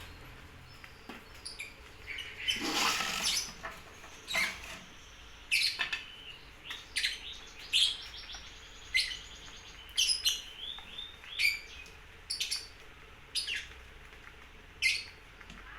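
A small songbird chirping: short, sharp, high calls repeated about once a second, with a longer, noisier burst early on.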